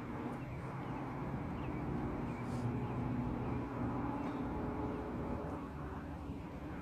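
Helicopter flying over, a steady engine and rotor noise that swells slightly toward the middle and then eases off.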